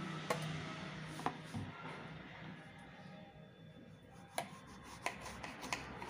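Kitchen knife slicing thin rounds off a small striped brinjal (eggplant), the blade knocking on the wooden cutting board about five times at uneven intervals.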